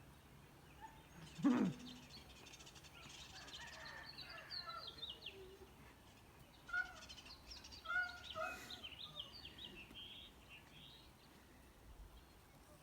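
Small birds chirping and twittering in quick, short falling notes, with one louder cry that drops steeply in pitch about a second and a half in.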